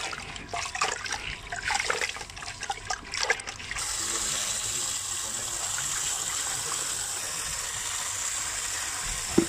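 Wet hands squelching and sloshing pieces of raw snake meat in a steel bowl of water. About four seconds in, a steady stream of tap water starts running and goes on evenly.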